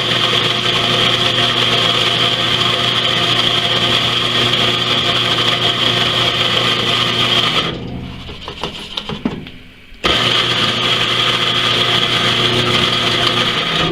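Electric coffee grinder grinding dry beans, rice and peas to powder: a steady motor whine that stops about eight seconds in, a short gap with a few clicks and rattles, then runs again and stops at the end.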